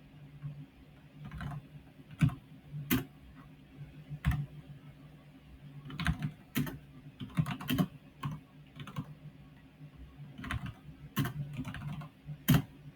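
Typing on a computer keyboard: irregular runs of key clicks with a few sharper, louder keystrokes, over a faint steady low hum.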